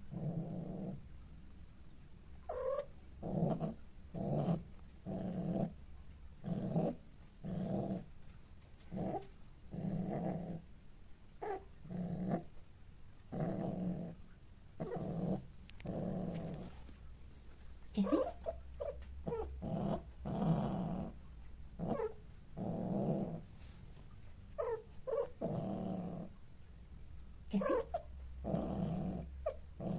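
Long-haired cats mating: low, rhythmic growling in pulses of about one a second, breath by breath, with a few sharper high cries mixed in.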